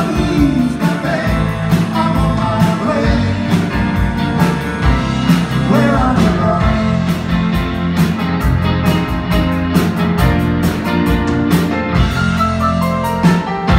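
Live rock-and-roll band playing: electric guitars, bass guitar, drum kit and keyboard, with a steady drum beat throughout.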